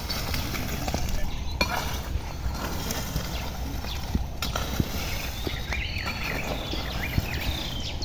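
Outdoor ambience: a steady low rumble of wind on the microphone, with a few short bird chirps and occasional soft knocks.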